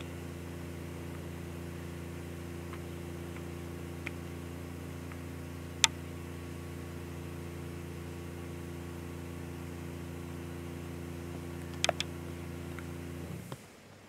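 A steady, low-pitched mechanical hum, like a motor running, that stops abruptly near the end. A sharp click about six seconds in and a quick double click about twelve seconds in.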